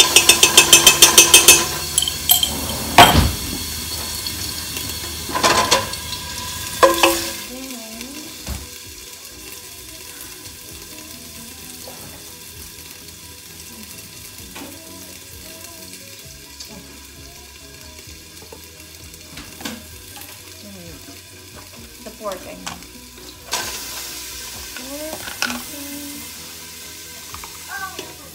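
Pork frying in olive oil in a stockpot, sizzling steadily. At the start a seasoning jar is shaken rapidly over the pot, followed by a few utensil knocks; from about 23 seconds in the sizzle grows louder as the meat is stirred.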